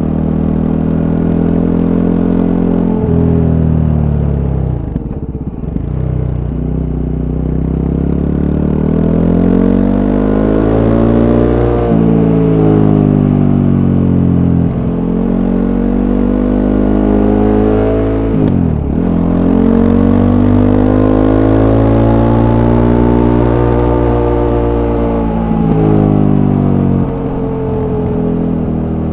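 Voge 300 Rally's single-cylinder engine through its stock exhaust, heard on board while riding: the engine note repeatedly climbs in pitch under acceleration and drops back as the rider shifts gears or eases off for curves, about half a dozen times.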